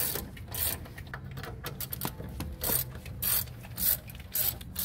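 A ratchet turning a 3/8 hex-bit socket to back out a brake caliper bolt, in about ten short bursts of rapid clicking, roughly two a second and unevenly spaced.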